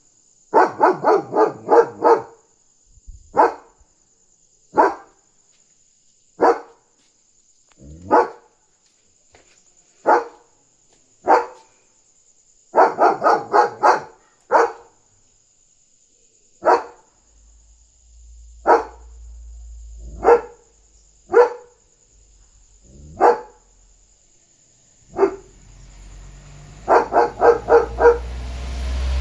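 German Shepherd barking loudly in single barks every second or two, breaking three times into quick runs of several barks. He is barking on alert at another dog outside.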